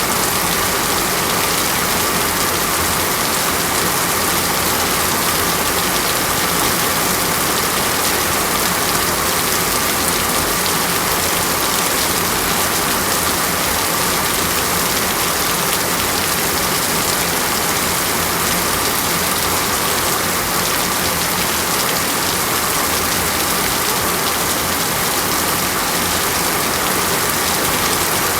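Water splashing and rushing: a steady, even hiss with no breaks or separate drops standing out.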